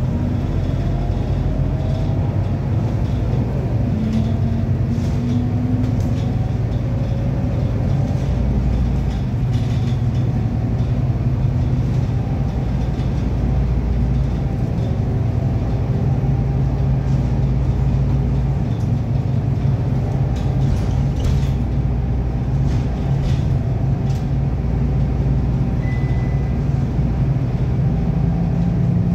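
A city bus's engine and gearbox heard from inside the passenger cabin while on the move: a steady low drone with faint whining tones that rise and fall with the drive. The uploader says it doesn't sound right and suspects an engine or gearbox fault.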